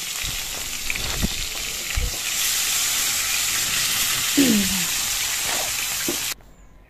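Rohu fish heads sizzling as they fry in oil in a metal karahi, turned with a metal spatula, with a few knocks early on. The sizzle cuts off suddenly about six seconds in.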